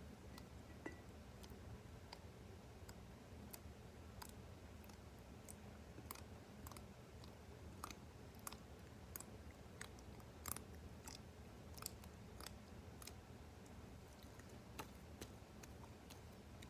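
Slime worked by hand, giving faint, irregular little clicks and pops, more frequent in the middle, over a low steady hum.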